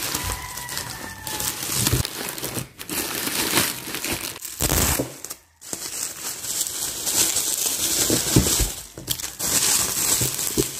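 Plastic mailer bag and bubble wrap crinkling and rustling as they are handled and pulled off a boxed package, with a brief break a little past halfway.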